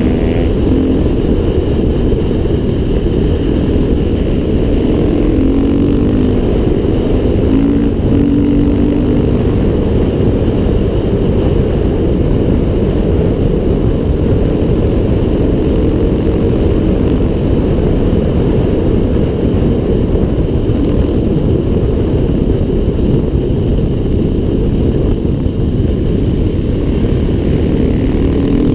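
KTM 500 EXC dirt bike engine running at speed on a gravel road, its note partly buried under loud, steady wind rumble on the microphone.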